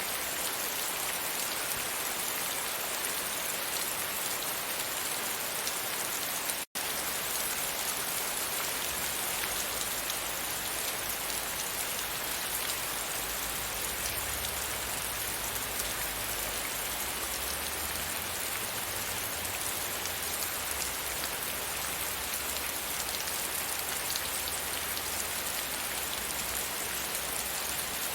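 Steady rain pattering against a window pane, with a split-second dropout about seven seconds in.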